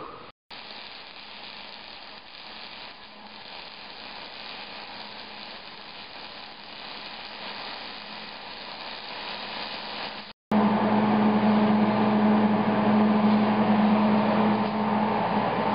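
Wire-feed welder's arc sizzling steadily while a steel tube leg is welded to the rail's pipe base. After a sudden cut about ten seconds in, a much louder steady hum takes over.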